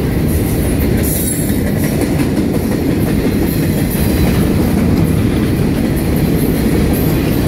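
Freight cars of a manifest freight train rolling past: a steady, loud rumble of steel wheels on the rails.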